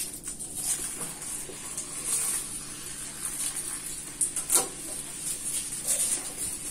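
A canned drink poured from the can into a glass of ice cubes, a steady running and splashing of liquid. A few sharp clinks come in, the loudest about four and a half seconds in.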